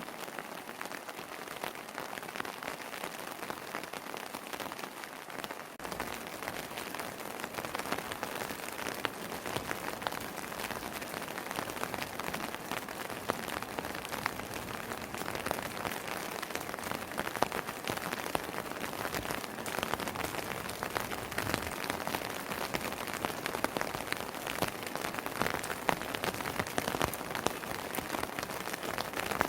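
Steady rainfall: a continuous patter of raindrops on the surfaces around a house terrace, with many individual drops ticking sharply through it. It grows a little louder and denser a few seconds in.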